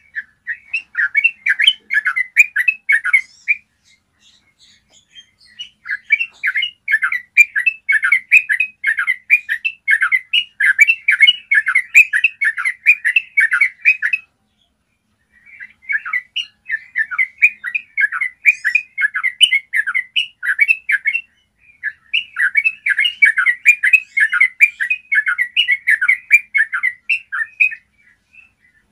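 Yellow-vented bulbul singing its long rolling 'ropel' song: dense runs of rapid, bubbly notes in bouts several seconds long, broken by brief pauses.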